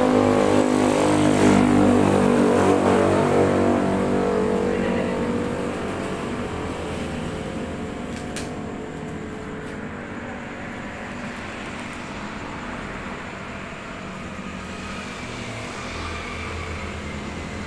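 A motor vehicle's engine running close by with a steady hum, loudest for the first five seconds and then easing to a lower, even drone. A single sharp click comes about eight seconds in.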